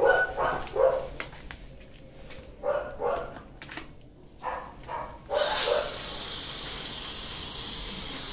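A dog barking several times. About five seconds in, a hose-end foamer on a water hose starts spraying foam with a steady hiss.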